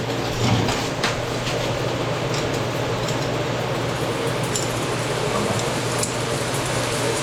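Electric arc welding: the arc sizzles and crackles steadily as a hot weld puddle is laid, over a steady low hum.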